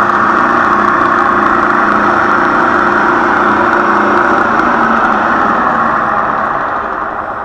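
Lagun knee mill's spindle, fitted with a Cat 40 tool holder and end mill, running free and spinning true. It is switched off about four seconds in and spins down, and the sound dies away toward the end.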